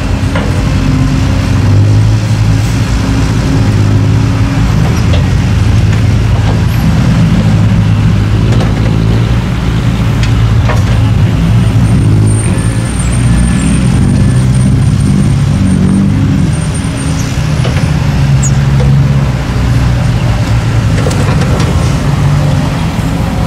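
Diesel engines of dump trucks and a Kobelco hydraulic excavator running, a steady low engine drone that rises and falls in pitch as the machines work. A faint high whine sounds for a few seconds about halfway through.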